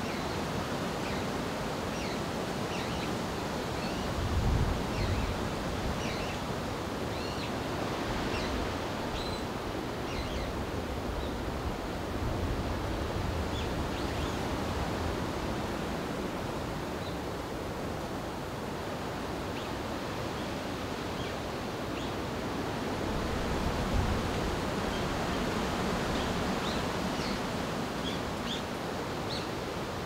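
Steady wind rushing through forest, swelling in low gusts a few seconds in and again near the end, with small birds chirping briefly and often.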